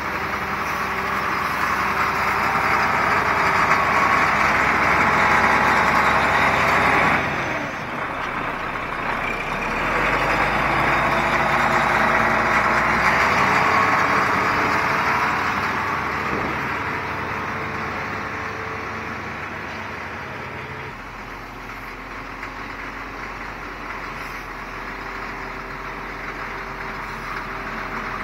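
CAT 14G motor grader's diesel engine running under load as the machine works close by, its blade dragging and spreading crushed gravel in a dense, rushing noise. The sound builds, drops suddenly about seven seconds in, swells again, then fades gradually over the last ten seconds.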